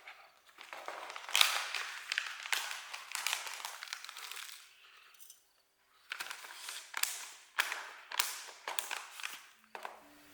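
Irregular rustling and crinkling with sharp crackles, in several bursts with a short pause about halfway through.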